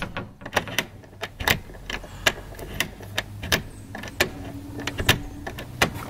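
Deadbolt of a newly mounted smart lock being worked back and forth by hand to test its throw before the batteries go in: a string of sharp mechanical clicks, about ten, at uneven spacing.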